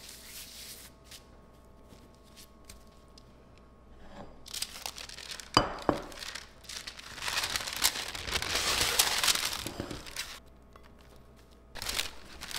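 Parchment paper crinkling and rustling as a ball of bread dough is handled on it, with two sharp knocks close together about halfway through.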